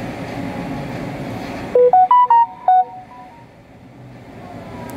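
Electronic phone notification tone: a quick run of about five beeping notes, rising then falling in pitch, about two seconds in, with a short ringing tail. A steady low rumble of background noise lies under the first half.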